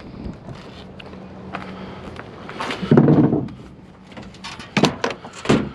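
Junk being handled in a curbside scrap pile: a loud thud or shove about three seconds in, then a few sharp knocks and clanks near the end, over a faint steady hum.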